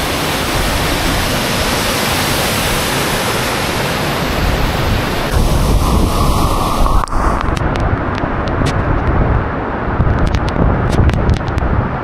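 Roar of a large waterfall, a dense, steady rush of falling water. About seven seconds in the sound changes: the high hiss drops away, leaving a deeper rumble with scattered sharp ticks.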